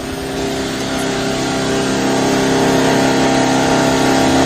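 Chainsaw engine running at high revs, holding a steady pitch and growing slightly louder.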